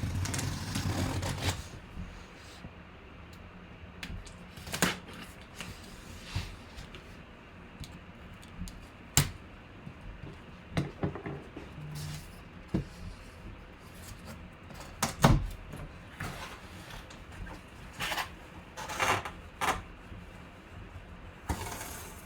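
Packaging being handled and opened by hand: scattered clicks, knocks and short rustles, busiest in the first second and a half, with one sharper knock about two thirds of the way through.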